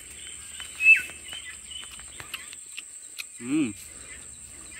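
Rural outdoor ambience: a steady high insect drone with scattered bird chirps, and one loud bird call sliding down in pitch about a second in. About three and a half seconds in, a short hummed voice sound.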